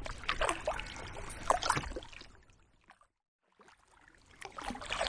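Kayak paddle strokes splashing in choppy lake water, with a low wind rumble on the microphone. The sound fades out to silence a little past halfway and fades back in near the end.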